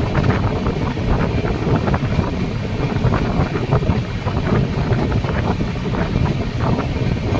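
Passenger train running, a steady rushing rumble with heavy wind buffeting the microphone.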